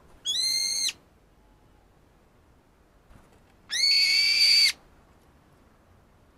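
Brown-eared bulbul giving two loud, shrill calls: a short one near the start and a longer one about four seconds in. Each rises at the start and then holds one high pitch.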